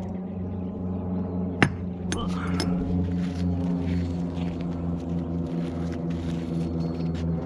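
A steady low droning hum at an even pitch, slowly pulsing. A single sharp click comes about a second and a half in, followed by a few lighter clicks.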